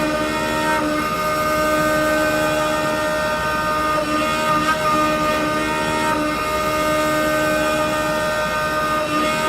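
Lathe running: a steady, dense machine noise with several whining tones, some of which come and go every second or two.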